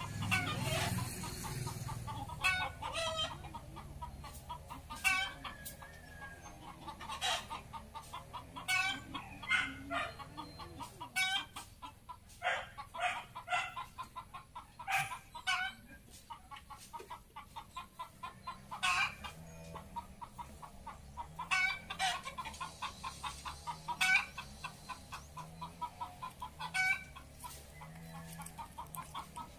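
Backyard chickens clucking, short calls coming every second or two.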